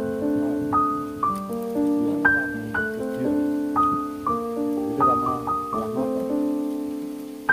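Background piano music: a gentle melody of single notes and chords, struck about twice a second, each left to ring and fade.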